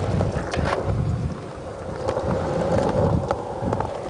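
Skateboard wheels rolling on a concrete bowl, a continuous rumble broken by a few sharp knocks of the board.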